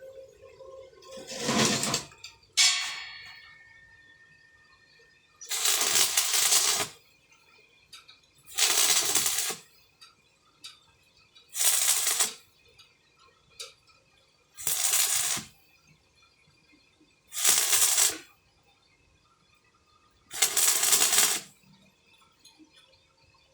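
Electric welding arc crackling in six short bursts, each about a second long and about three seconds apart, as a row of tack welds is laid. Near the start a piece of metal clinks and rings briefly.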